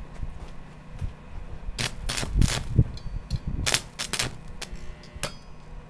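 Arc welding with a small 120-amp buzz box welder: the arc crackles and pops irregularly, with louder clusters of sharp pops about two and four seconds in, over a steady low hum.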